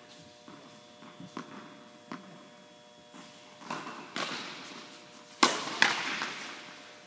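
Faint tennis ball hits and bounces echoing in an indoor tennis hall over a steady hum. Then two sharp, loud knocks about half a second apart, a second or so before the end.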